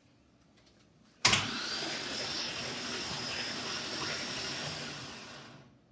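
Starter motor cranking an LS1 V8 without it firing, to build oil pressure. It comes in with a sharp clack about a second in, runs steadily for about four seconds with a high whine on top, then winds down near the end.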